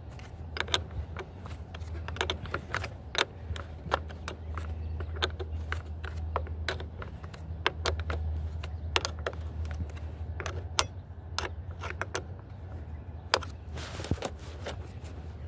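Wrench tightening the nut on a car battery's terminal clamp: irregular, sharp metal clicks of the tool on the bolt, over a steady low hum.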